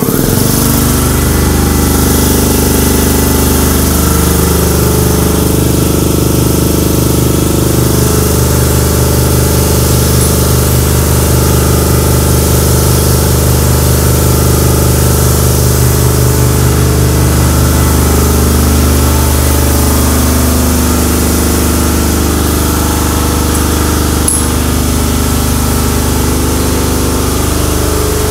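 Electric piston air compressor running steadily and loudly, pumping up its tank after starting.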